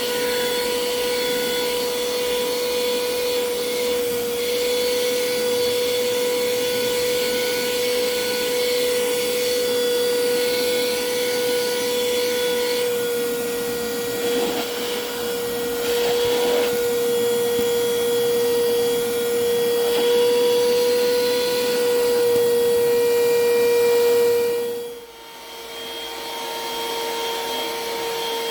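Black+Decker BCHV001D1E cordless vacuum running with a steady high motor whine, fitted with its narrow crevice nozzle and picking up crumbs, with a few faint rattles. About 25 seconds in the sound drops away sharply and comes back at a slightly lower level.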